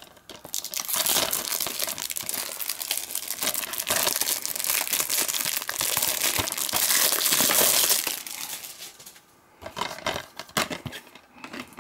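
Cellophane shrink wrap being torn and peeled off a DVD case, a long stretch of dense crinkling and crackling that is loudest just before it stops, followed by a few scattered clicks and rustles.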